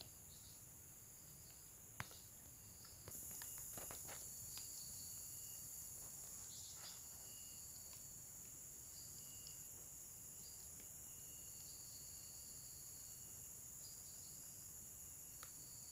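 A steady chorus of insects trilling in several high-pitched bands, which gets louder about three seconds in. A few faint clicks and ticks are heard over it.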